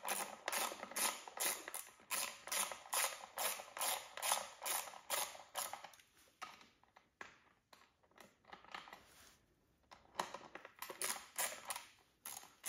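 Hand ratchet wrench clicking in quick, even strokes as a bolt is turned. It pauses about halfway through with a few scattered clicks, then resumes near the end.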